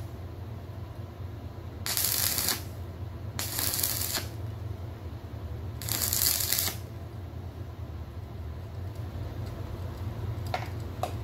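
Stick (arc) welder laying short welds on steel plate: three brief crackling, sizzling bursts of the arc, about two, three and a half and six seconds in, over a steady low hum. Two faint clicks near the end.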